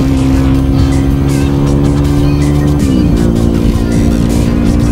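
Yamaha WR250R's 250 cc single-cylinder four-stroke engine running at steady revs through a YZ250F muffler. About three seconds in, the revs drop quickly and the note settles steady at a lower pitch.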